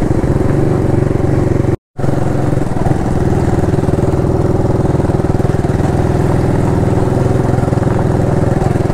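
Yamaha motorcycle engine running steadily at low road speed, heard from the rider's seat. The sound cuts out for a moment about two seconds in, then carries on.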